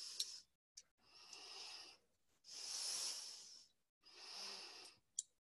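A person breathing audibly close to the microphone: three breaths, each about a second long and about a second and a half apart, with a short click near the end.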